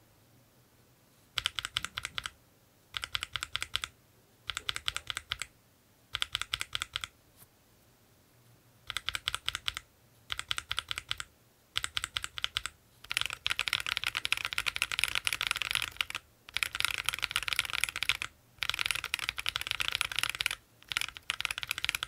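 Akko Lavender Purple tactile mechanical key switches being pressed in quick runs of keystrokes, with the clack kept low in pitch and on the quiet side. Short separate bursts of presses in the first half give way, from about halfway through, to near-continuous typing.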